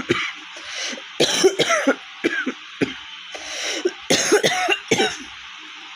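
A woman coughing in two fits, the first about a second in and the second around four seconds, with a few single coughs between. Her throat is raw and hoarse from a heavy cough and a cold.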